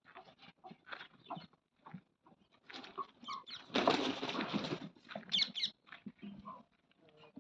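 Farm animals in a pen: scattered short scuffs and calls, with a louder harsh, noisy sound lasting about a second a few seconds in, followed by a few high chirps.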